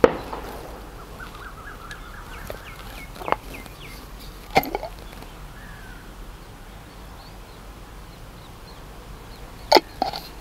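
Sharp clinks and taps of a serving spoon and a small glass jar as food is served onto a banana leaf, the loudest at the very start and a pair near the end. A quick run of bird chirps comes about a second in.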